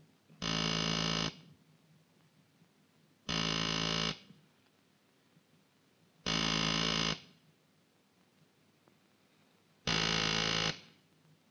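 Rotary-dial telephone ringing four times, each ring a buzzy tone just under a second long, repeating about every three seconds.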